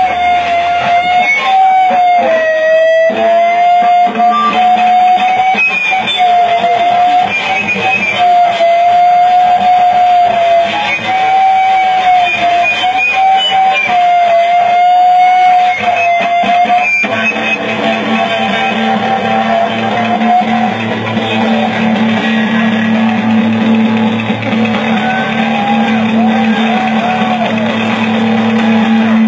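Electric guitar played loud through an amplifier. It holds one long wavering high note for the first half, then switches to a steady low drone with scratchy, noisy playing over it.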